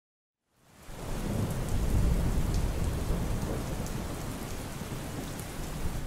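Steady heavy rain with a low rumble of thunder. It fades in about half a second in, and the rumble is strongest a second or two later.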